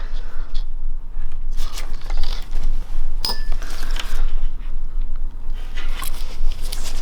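Multimeter test probes and small metal parts being handled: scattered light clicks and scrapes, over a steady low hum.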